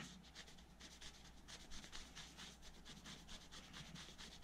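Faint, quick, repeated scrubbing of a paper towel rubbing dried-out thermal paste off a heatsink base.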